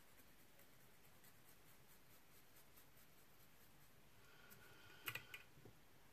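Near silence with faint crisp ticks of a razor blade shaving spun deer hair on a fly. About five seconds in, a short cluster of sharper clicks as the rotary fly-tying vise is turned over.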